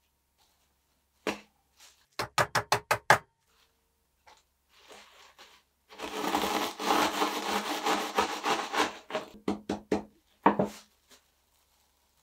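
Wooden rolling pin breaking biscuits in a plastic bag. First a single knock, then a quick run of about seven sharp knocks. About halfway through come a few seconds of dense crunching and crinkling plastic as the biscuits are crushed, which break up into more separate knocks, the last one loud.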